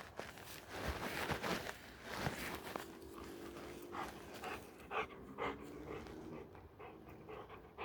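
Quick, rhythmic panting breaths, with footsteps on the forest floor in the first half.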